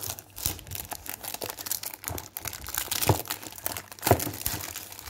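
Packaging crinkling and tearing as a boxed perfume kit is unwrapped by hand, with a couple of louder knocks about three and four seconds in.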